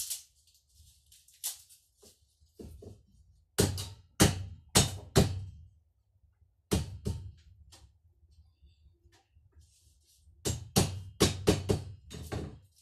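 A series of sharp knocks and clatters of hard kitchen objects against a hard surface, in irregular clusters: four loud ones about half a second apart a third of the way in, two more soon after, and a quicker run of about seven near the end.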